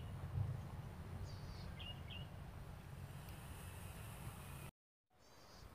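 Outdoor ambience of wind rumbling on the microphone, with a few short bird chirps, three in the first two seconds or so and one just before the end. The sound cuts out completely for a moment near the end.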